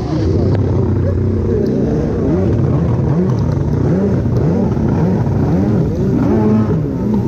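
Ported two-stroke engine of a Yamaha SuperJet stand-up jet ski revving up and down over and over, its pitch rising and falling in quick swoops as the throttle is worked.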